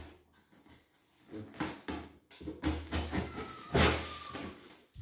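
Plastic packing tape being peeled and cut off a cardboard box: a series of short rasping rips, the loudest about four seconds in.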